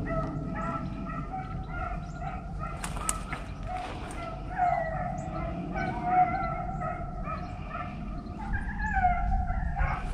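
A pack of beagles baying, overlapping long wavering howls as the hounds run a rabbit's scent trail. A low wind rumble lies underneath.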